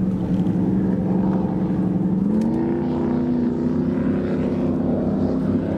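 Racing powerboat engines running at speed, a steady droning hum that rises in pitch a little over two seconds in and then holds.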